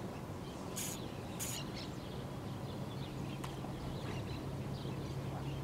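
Outdoor ambience with small birds chirping now and then. About a second in come two brief high hissing bursts, and from about halfway through a low steady hum joins.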